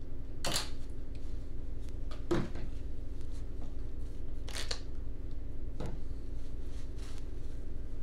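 Several short hissing squirts from a trigger spray bottle of Windex, a second or two apart, over a steady low hum.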